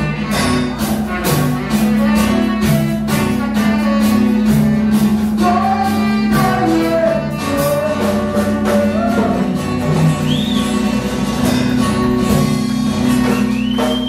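Live band playing: a saxophone melody over a drum kit keeping a steady beat and a strummed guitar.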